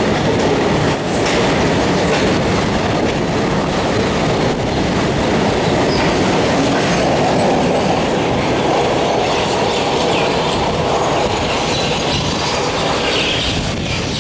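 A train running at speed: a steady, loud rumble and clatter of steel wheels on rails.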